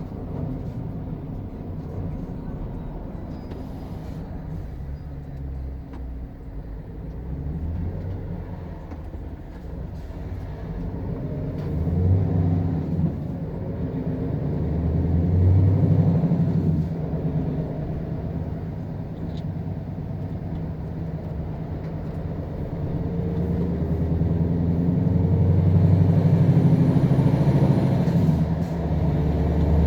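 Scania R520 Next Gen truck's 16-litre V8 diesel on its stock exhaust, working under a heavy load of about 50 tonnes gross. The engine note rises and falls in pitch and level several times, growing loudest near the end.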